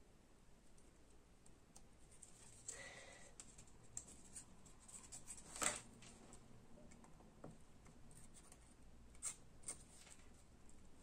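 Faint scratching and light ticks of a pen-style craft knife blade cutting around a small paper motif on a cutting mat, with one sharper click about halfway through and two more near the end.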